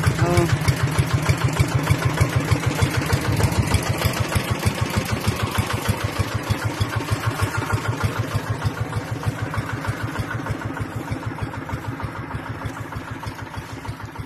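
Small engine running at idle, a rapid, even chugging that grows gradually fainter.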